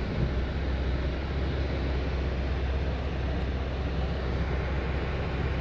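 BMW F80 M3's twin-turbo inline-six, fitted with catless downpipes and an exhaust with its valves held open, running at a steady low drone while driving, with a constant hiss of tyre and road noise from a snowy road.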